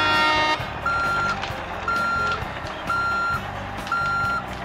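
Truck reversing alarm beeping steadily, about one beep a second, over a low engine-like drone. A chord of several held tones stops about half a second in.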